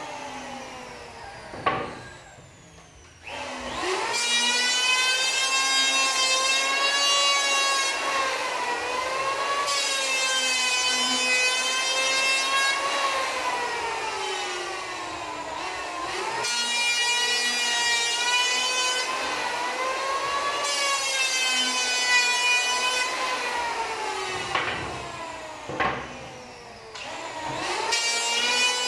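Handheld electric planer planing a pallet plank, its motor whine sagging in pitch under the cut and recovering over several long passes. It winds down about two to three seconds in and starts up again with a rising whine, then dips briefly and comes back near the end.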